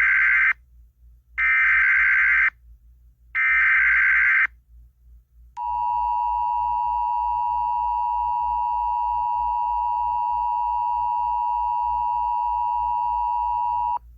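Emergency Alert System broadcast tones: three buzzing digital header bursts of about a second each, two seconds apart. Then the two-tone EAS attention signal, a steady dual tone held for about eight seconds before it cuts off abruptly. A faint low hum lies underneath.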